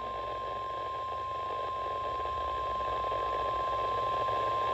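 NOAA Weather Radio's single-tone emergency alert tone: one steady, unwavering pitch that signals an incoming warning or watch message, heard over the radio's background hiss.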